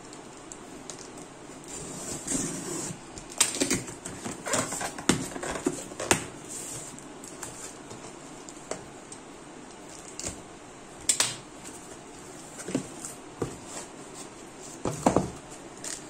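A cardboard carton being opened by hand: its sealing tape slit, flaps pulled back and the inner packing handled, making a string of irregular scrapes, rustles and knocks.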